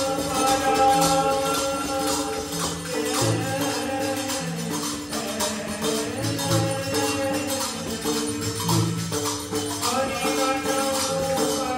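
Devotional kirtan music: a harmonium holding sustained notes over tabla strokes, with jingling hand percussion keeping an even beat.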